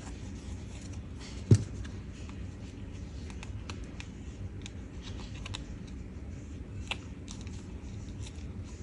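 Hands handling chiffon ribbon and a small metal clip: light rustling and scattered faint clicks, with one sharp knock about a second and a half in.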